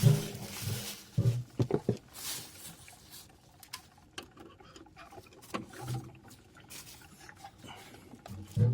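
Gas water heater thermostat being unscrewed from the tank by hand: scattered scrapes, clicks and knocks of metal on metal, busiest in the first two seconds.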